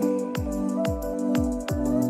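Background music with a steady beat: deep drum thumps that drop in pitch, crisp ticks and held chords.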